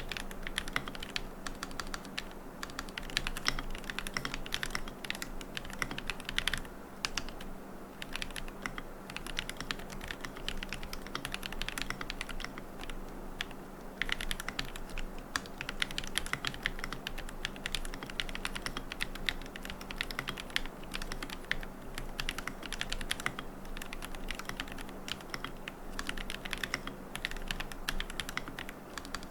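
Continuous typing on a QK75N mechanical keyboard with Gateron Moon Landing switches, a carbon plate, no foam and MilkyWay Poker keycaps: a dense run of key clacks with a couple of brief lulls. A faint steady hum sits underneath.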